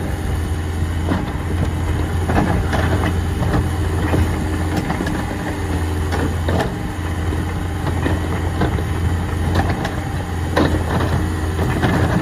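Mini excavator engine running steadily, with scattered knocks and clicks throughout.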